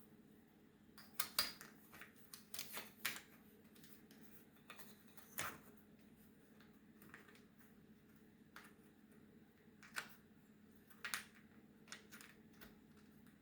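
Map puzzle pieces being handled and fitted into place: scattered light clicks and taps, several in quick succession near the start, then single ones every few seconds.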